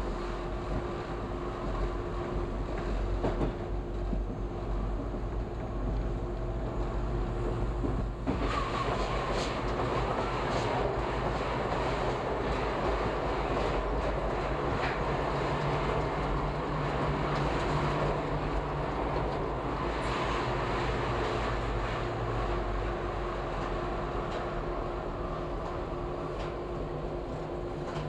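Subway train running along the track, heard from inside the front car: a steady rumble and motor hum with wheels clicking over rail joints. About eight seconds in the sound changes suddenly and grows fuller as the train enters the tunnel.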